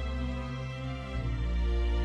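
Slow background music of held, sustained notes over a deep bass; the chord changes about a second in.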